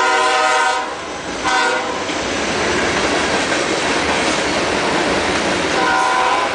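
A freight train passes close by with its lead CSX ES44DC locomotive's horn blowing at the start, a short blast about a second and a half in, and another near the end. In between, covered hopper cars rumble and clatter over the rails.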